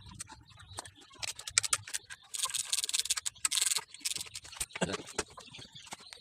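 Metal engine parts and hand tools clicking and rattling as a motorcycle engine is worked on, with a stretch of scratchy metal-on-metal noise in the middle.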